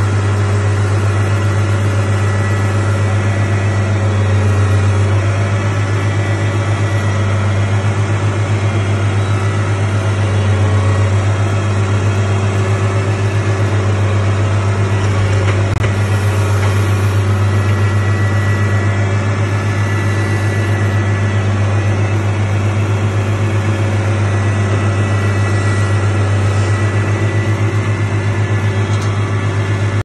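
Feed mixer wagon running with a steady low drone from its engine and mixing augers as it unloads feed onto the feeding alley.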